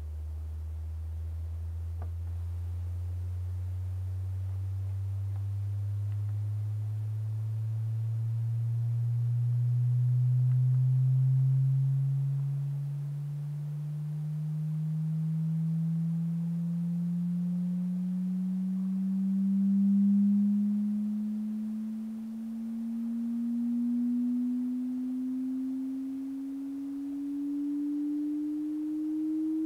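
Sine-wave frequency sweep played from a computer through a large loudspeaker: a single pure tone gliding slowly and steadily upward from deep bass to about 300 Hz, its loudness swelling and dipping as it climbs. It is an audio test signal spanning the range of human hearing.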